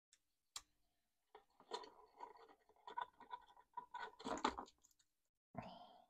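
Faint handling of a small plastic bike alarm housing and zip ties: a single click, then a run of clicks, scrapes and rattles as the ties are worked through its mount, loudest about four seconds in.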